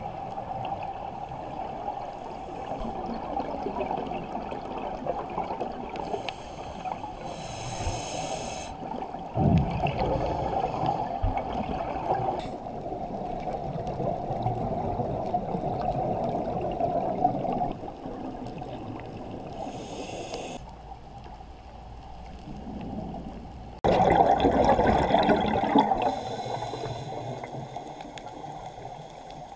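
Scuba diver breathing through a regulator underwater, heard through a GoPro's waterproof housing: a muffled steady wash with short hissing inhalations and louder surges of bubbling exhalation, the strongest a few seconds before the end.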